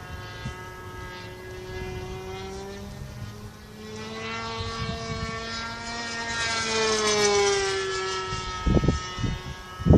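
Glow-fuel engine of a radio-control model airplane in flight: a steady buzzing whine that swells as the plane comes closer, then drops in pitch as it passes, about seven to eight seconds in. Near the end come a few low thumps of wind buffeting the microphone.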